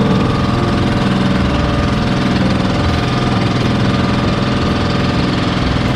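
Small boat engine running loudly and steadily at a constant speed.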